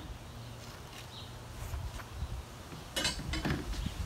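Rustling and scraping as a soft padded gun case is handled, beginning about three seconds in, over a low wind rumble on the microphone.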